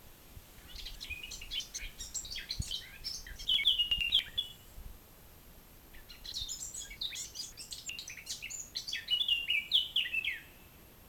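A bird singing two long, fast phrases of varied high notes, about two seconds apart, each ending in a louder run of notes.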